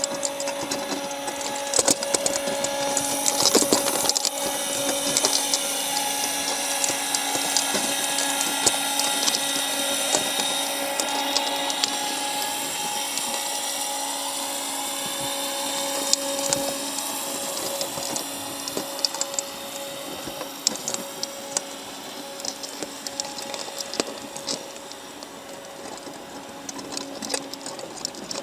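Underwater sound with a steady machine-like hum and whine; its higher tones slowly bend up and down during the first half. Scattered sharp clicks run through it, fitting crab shells and claws knocking against each other and the wire of the trap.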